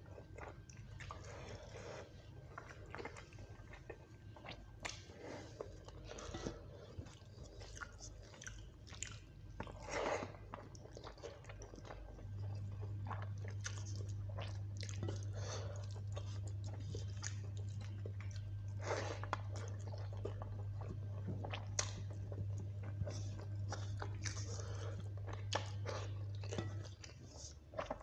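Close-up eating of chicken curry and rice by hand: wet chewing and mouth smacking in short irregular bouts. A steady low hum comes in partway through and stops shortly before the end.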